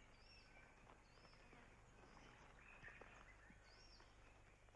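Faint bush ambience with birds calling: a short, high, arched call repeated several times, with softer chirps beneath.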